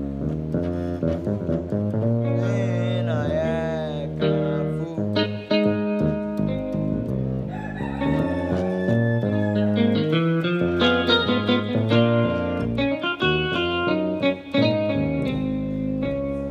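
Instrumental praise music: a walking bassline moving under changing chords and passing chords, with a wavering high note about three seconds in.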